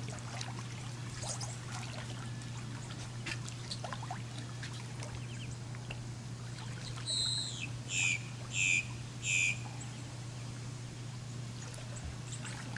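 Pool water trickling and splashing over a steady low hum, with four loud, high-pitched chirps about seven seconds in, the first longer and the next three short and evenly spaced.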